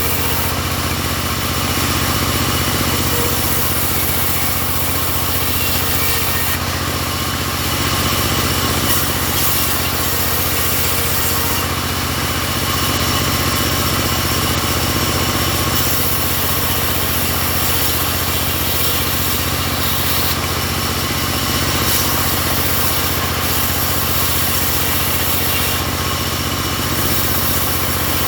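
Portable home-built sawmill running steadily, a constant engine-like drone with a dense high-pitched whir over it that swells slightly every few seconds.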